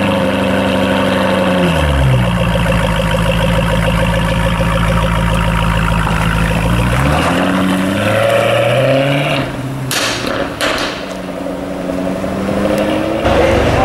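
Jaguar F-Type's engine revving at the exhaust tips: its pitch steps down, holds steady, then climbs and falls again as the throttle is blipped. A few sharp clicks come about ten seconds in, and the sound then turns to quieter, mixed street noise.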